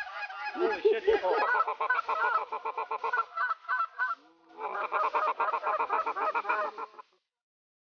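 Many overlapping goose honks and clucks in rapid succession, with a short break about four seconds in; the sound cuts off suddenly about a second before the end.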